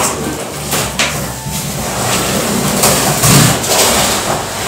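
Cardboard mattress box being dragged and slid off a plastic-wrapped rolled mattress: cardboard scraping and plastic rustling with a few knocks, and a heavier dull bump about three seconds in.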